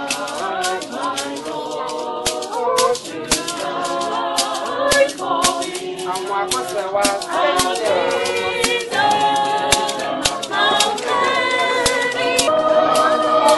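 A group of people singing together, with a steady percussive beat kept under the voices.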